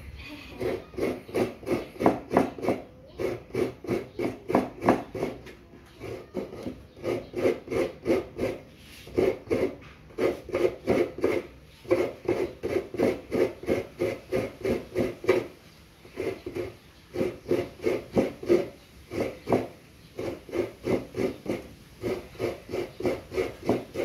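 Coconut half scraped by hand against the toothed metal blade of a seat-mounted coconut grater (kudkuran), shaving out fresh coconut meat. Quick rasping strokes, about three or four a second, come in runs with short pauses between them.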